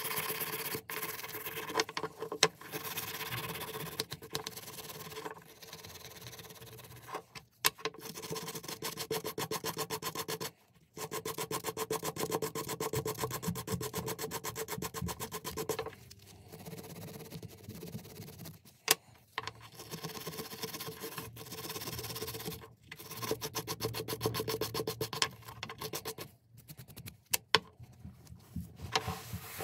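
Rusty steel of an old Bahco adjustable wrench being worked with an abrasive tool: runs of fast, even rubbing strokes, broken by short pauses between passes, as the rust is taken off.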